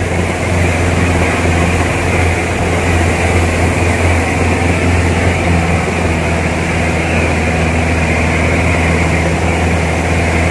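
Vehicle engine running steadily under load as it climbs a steep concrete mountain road, heard from inside the cab as a constant low hum.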